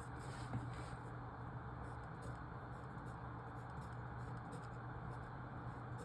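Faint scratching of writing strokes as marks are made in a logic-puzzle grid, over a steady low hum.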